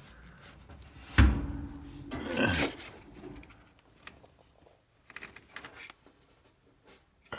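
Dryer door being swung shut on its repaired hinge, closing with a single loud thump about a second in, then a few light clicks.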